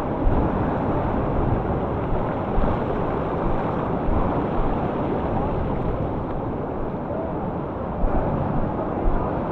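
Steady rushing noise of whitewater from the rapid, with wind buffeting the microphone.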